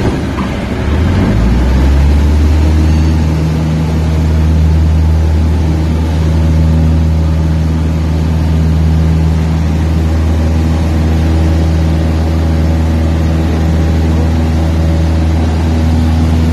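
Single-engine light aircraft's piston engine heard from inside the cockpit, its revs rising about a second in as the throttle is pushed in, then running steadily at high power.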